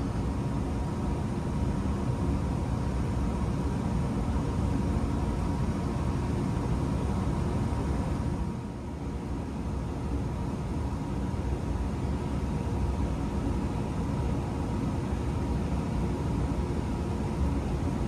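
Luxaire gas furnace running and heating, its blower pushing air: a steady rush and low rumble with a faint steady tone, dipping briefly about halfway through.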